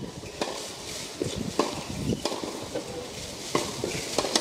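A tennis ball knocking: five sharp hits at uneven gaps of about a second.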